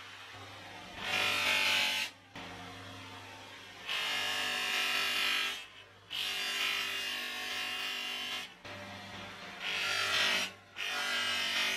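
Bench grinder motor running with a steady hum while small metal parts are pressed against its spinning abrasive wheel, giving a grinding rasp in four or five separate stretches of a second or two each, with short breaks between them.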